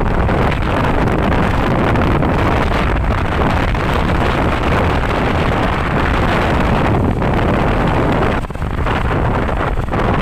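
Steady wind buffeting on the microphone mixed with road and engine noise from riding along in traffic, with a brief lull near the end; no horn sounds.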